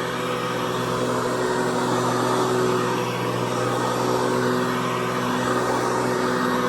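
Hoover Convertible Elite upright vacuum cleaner running steadily, its motor and 12-blade plastic fan giving a constant whine over a rush of air.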